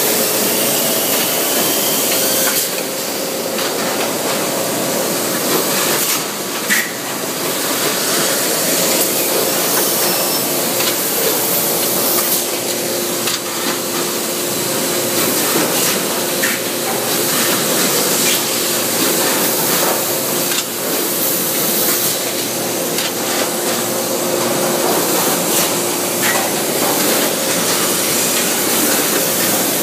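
Uniloy blow molding machine running: a loud, steady hiss of machinery and air with a faint hum underneath and occasional sharp clacks.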